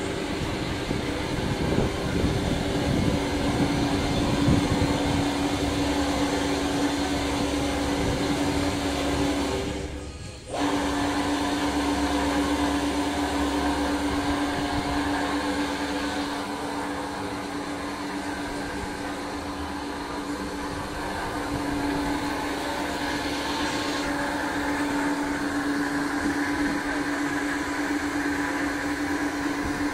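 Ribbon blender's electric motor and drive running, a steady machine hum with one strong steady tone. The sound fades away briefly about ten seconds in and comes back suddenly.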